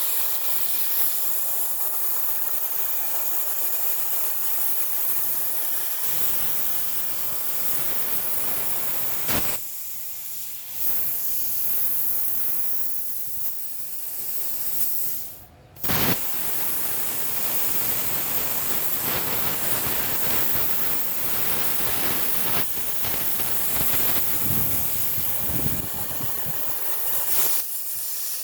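CNC plasma cutting torch hissing steadily as it cuts metal. About halfway through the arc cuts out for a moment, then restarts with a sharp crack and the hiss carries on.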